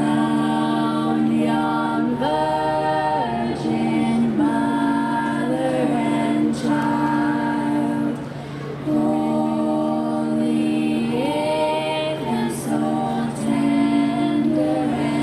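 Youth choir singing in harmony, holding long chords in several parts, with a short break between phrases about eight seconds in.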